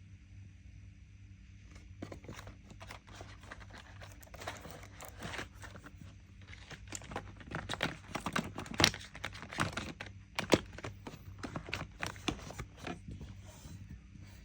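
Small items being handled and set down on a vanity table: a run of light clicks and taps, busiest and loudest in the middle, over a steady low hum.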